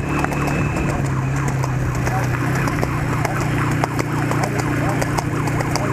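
A motor vehicle engine running steadily at close range, with a trotting horse's hooves clopping on the road as short irregular knocks.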